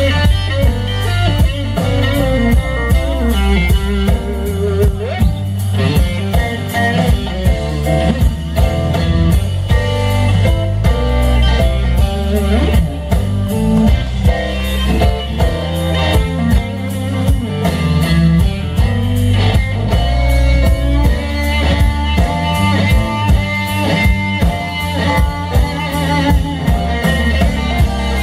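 Live blues band playing a slow blues: a lead solo on an electric guitar over drum kit and electric bass, with a steady beat.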